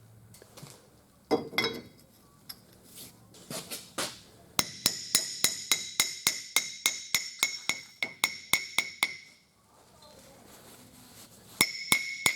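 Hammer tapping a steel part in a quick, even rhythm, about four to five ringing metal strikes a second, for several seconds from about a third of the way in, then starting again near the end. A few separate knocks come before the run.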